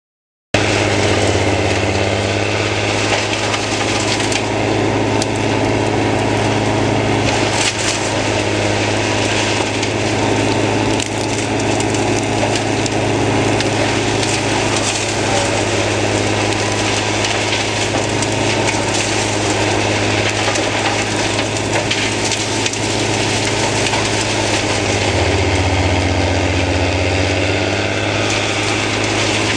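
Erjo wood chipper powered by a Kockums 85-35 forestry machine, chipping brushwood: a steady engine drone with continuous crunching and splintering of branches going through the chipper. It starts abruptly and the engine note changes for a few seconds near the end.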